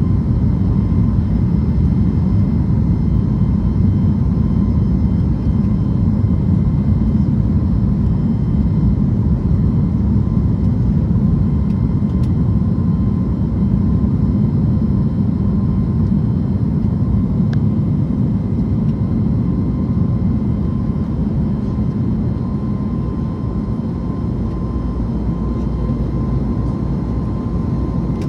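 Cabin noise of a Boeing 737 MAX 8 climbing after takeoff, with its CFM LEAP-1B engines at climb power: a steady low rumble of engines and airflow, with a faint steady high tone above it. It eases slightly for a few seconds near the end.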